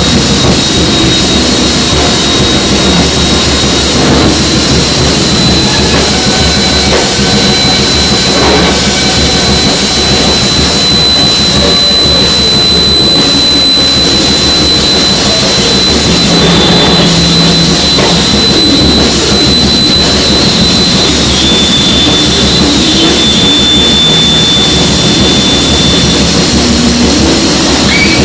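Loud live free-improvised noise music: a dense, unbroken wall of distorted noise from drums, horns and amplified electronics. A steady high-pitched tone runs through most of it, dropping slightly in pitch about two-thirds of the way in.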